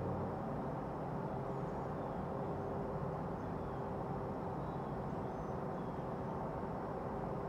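Steady low background rumble of ambient noise with faint hum tones. A few faint high chirps sit in it.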